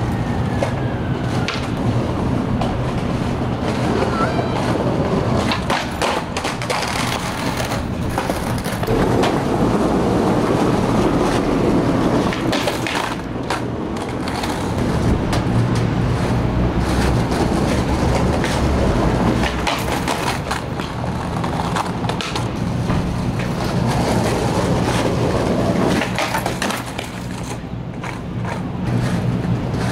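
Skateboard wheels rolling over stone pavers, with repeated sharp pops, slaps and clatters of the board hitting the ground as tricks are tried and the board is bailed.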